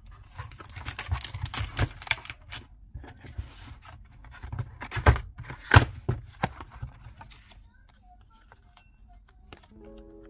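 A kraft paperboard business-card box being handled and opened: a run of paper scraping, rubbing and small clicks, with two sharp knocks of the box about five and six seconds in, then quieter rustling of the stacked paper photocards. Soft background music comes in near the end.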